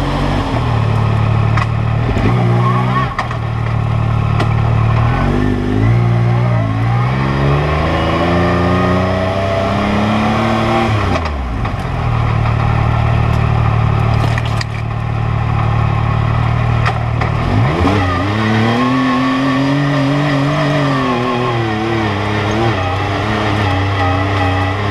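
Yamaha YXZ1000R side-by-side's three-cylinder engine, heard from inside the open cab, running at low, steady revs on a slow trail crawl and revving up in rising sweeps a few times before dropping back. A few knocks sound over the engine.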